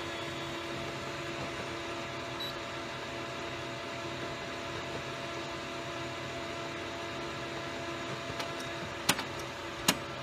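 Steady background hiss with a low hum, the recording noise that viewers took for running water. Two sharp clicks come close together near the end.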